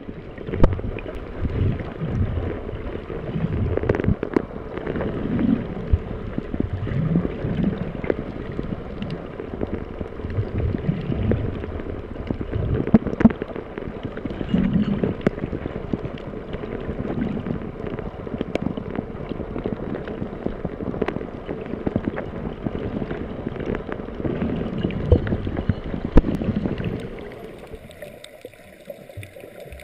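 Underwater ambience picked up by a camera: a muffled, low rumbling water noise with scattered sharp clicks, which drops away near the end.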